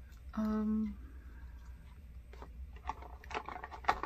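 A woman's short hummed "mm" on one steady pitch about half a second in, followed by soft clicks and light rustling as small cosmetic bottles and packaging are handled.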